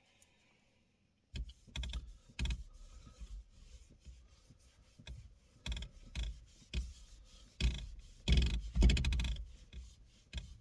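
Irregular clicks, taps and rustling from hands handling things during the work, with a louder rapid clatter of clicks about eight to nine and a half seconds in.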